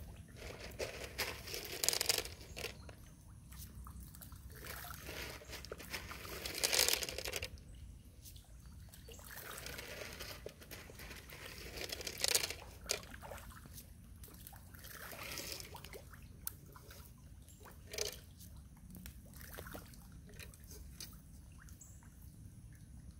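Water splashing and sloshing as a crowd of catfish roll and thrash at the surface, in irregular bursts, the loudest about 2, 7 and 12 seconds in.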